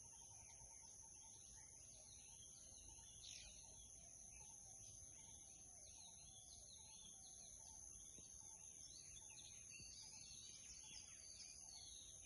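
Faint outdoor ambience of small birds chirping and twittering almost without pause, over a steady high-pitched whine and a low rumble.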